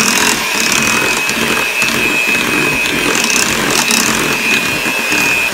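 Electric hand mixer running steadily, its twin wire beaters whisking through cake batter that has thickened, with a constant high motor whine.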